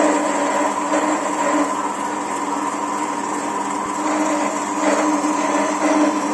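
Horizontal metal-cutting band saw running, its blade cutting through a metal bar held in the vise: a steady machine hum with a constant tone.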